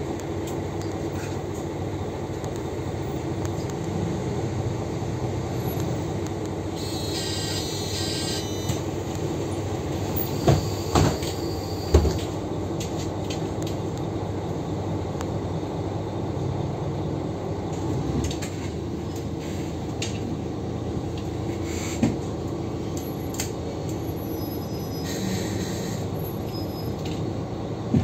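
Cabin sound of an articulated Mercedes-Benz O530G Citaro bus: a steady drone of the engine and ZF Ecomat automatic gearbox, with body and road noise. A brief high tone comes about seven seconds in, and a few sharp knocks or rattles come around ten to twelve seconds in and again near twenty-two seconds.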